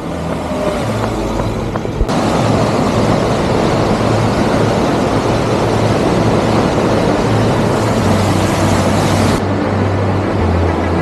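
A waterfall rushing loudly and steadily, cutting in abruptly about two seconds in and cutting off abruptly near the end, over background music with a low bass line.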